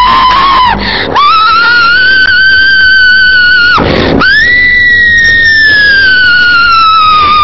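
A person screaming: long, high-pitched held screams, three in a row with short gasps between them, the last one sliding slowly down in pitch.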